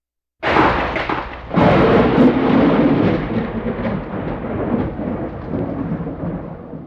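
A thunderclap: a sudden crack about half a second in, a second, louder crash a second later, then a long rolling rumble that slowly fades away.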